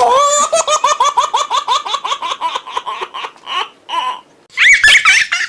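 A laugh sound effect: one high-pitched voice laughing in quick repeated "ha" pulses, about five a second, tailing off after about three seconds. A shorter, higher-pitched burst of laughter follows near the end.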